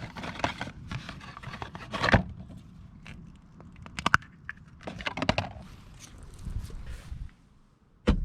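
Handling noises: a string of sharp clicks and knocks with some rustling and scraping between them, and one loud knock just before the end.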